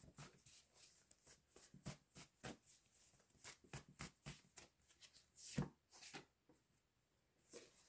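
Faint, quick, irregular flicks and riffles of a tarot deck being shuffled by hand, with one louder flick about five and a half seconds in.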